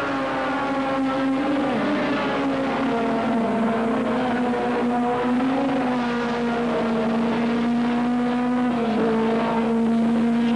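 Racing saloon car engines at high revs on the circuit, the engine note dropping in steps twice, about three seconds in and again near the end.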